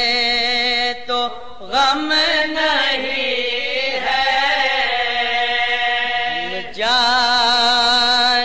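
A solo voice singing a manqabat, a devotional song in praise of Ali, in long drawn-out held notes with a wavering vibrato. There is a brief break about a second in, and a new held note starts near the end.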